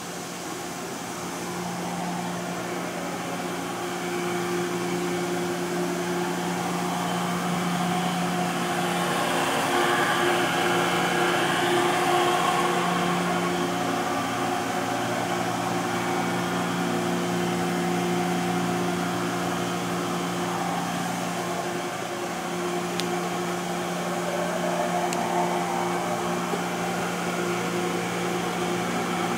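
Makino S56 vertical machining center running: a steady machine hum with a whine that rises and falls about ten seconds in and again near the end.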